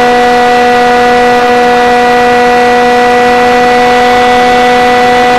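Multiplex Shark RC airplane's electric motor and propeller, heard from on board, running at a steady throttle. It makes a loud, even whine with several overtones over a rush of air.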